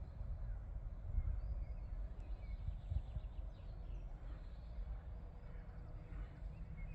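Outdoor yard ambience: a steady low rumble with faint bird chirps now and then.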